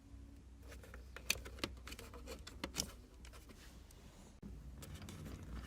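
Faint, scattered sharp clicks and light taps of small plastic trim pieces and hand tools at a car's steering wheel, as the covers over the airbag mounting screws are worked off, over a low steady hum.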